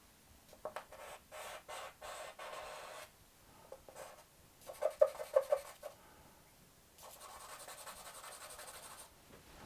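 Charcoal stick scratching across drawing paper in strokes. There is a run of strokes early, a cluster of short, quick strokes about five seconds in, and a steadier stretch of rapid hatching near the end.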